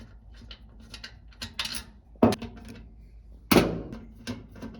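Small clicks and knocks of hands and a screwdriver working on a top-load washer's plastic lid switch and its Phillips screws, with two louder knocks about two and three and a half seconds in.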